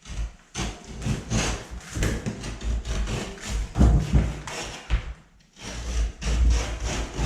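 Utility knife blade cutting and shaving the edge of a gypsum drywall sheet: a run of short scraping strokes with knocks and thuds, pausing briefly about five seconds in.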